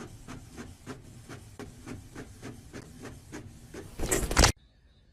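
Inkjet printer printing a page, its print head going back and forth in even strokes about three times a second. About four seconds in there is a short, much louder rushing noise, and then the sound stops abruptly.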